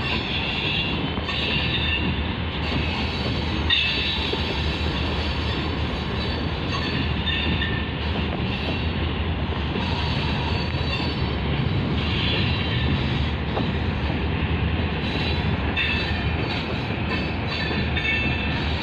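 Freight train of tank cars rolling steadily past, a continuous rumble of wheels on rail with high wheel squeal coming and going.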